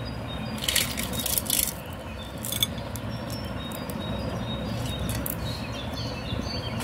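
Brief crackly rustles and light clicks of sugar-coated chocolate candies being handled and sprinkled over a creamy fruit salad, a cluster about a second in and one more a moment later, over a steady background hum.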